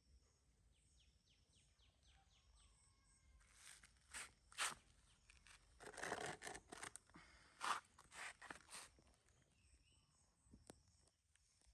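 Insects, crickets or similar, chirping faintly in a repeating high-pitched pattern. A run of short rustling and scraping noises sits in the middle, loudest about 4.5 s and 7.5 s in.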